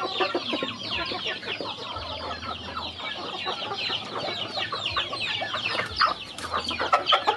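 A flock of chickens and roosters feeding: a dense, continuous chatter of short clucks and high chirping calls, with a few sharper taps about six to seven seconds in.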